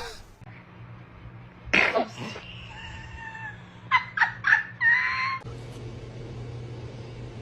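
Newborn baby sneezing: one sudden sneeze about two seconds in, a thin high squeak, then three quick short bursts around four seconds, followed by a brief high squeal.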